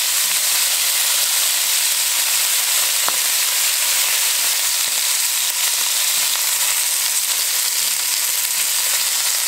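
Oxtail pieces searing in hot oil in an enamelled Dutch oven: a steady, loud sizzle, with a single light click about three seconds in.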